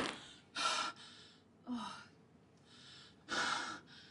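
A person gasping and breathing hard just after a big sneeze: three loud breaths a second or so apart, the second with a short falling sigh in the voice.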